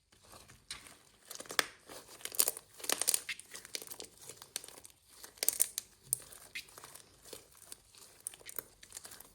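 Hands squeezing, stretching and poking clear slime, making irregular sticky crackles and snaps.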